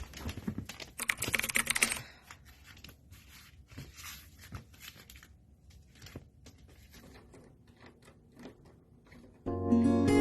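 A quick run of light clicks for about a second, then scattered single clicks and taps. Acoustic guitar music comes in near the end.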